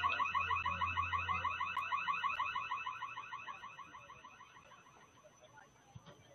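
Marching band front ensemble holding a high chord that pulses rapidly and fades away over about four seconds.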